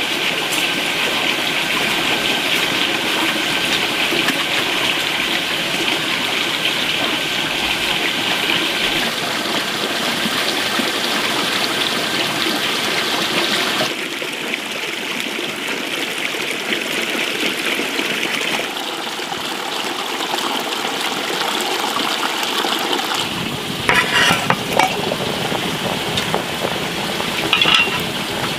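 Cooking and water sounds across a few cuts: a wood cooking fire under pots at first, tap water pouring into a metal basin around the middle, and a pot of tomato sour soup boiling at the end. A few short clinks of a pot or utensil come in the last few seconds.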